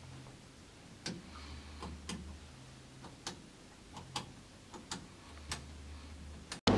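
Faint ticking, one tick roughly every second and coming a little quicker towards the end, over a faint low hum. Just before the end it cuts out and a much louder steady rumble begins.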